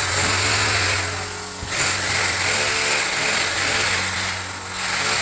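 Electric power tool running under load in three long surges of grinding noise over a steady motor hum.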